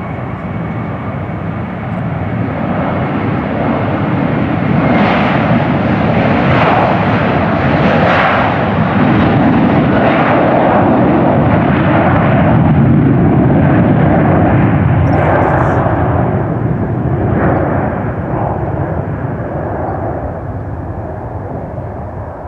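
Boeing 737 twin-jet airliner on its takeoff roll: a steady high engine whine at first, then jet roar with a pulsing crackle that swells as the engines reach takeoff thrust, is loudest past the middle, and fades in the last few seconds as the aircraft speeds off down the runway.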